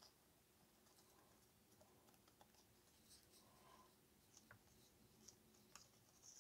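Near silence, with faint scattered small clicks and soft rustles of paper craft pieces being handled on a table.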